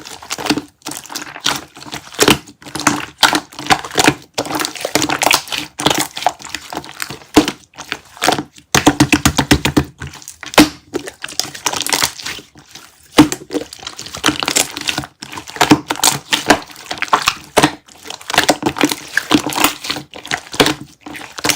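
Slime being squished, pressed and folded by hand, giving dense, irregular runs of sticky clicks, pops and crackles with brief pauses between handfuls.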